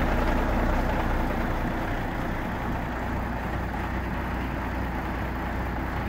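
Steyr 19.372 4x4 tipper truck's diesel engine idling steadily, a low even rumble that eases slightly over the first couple of seconds.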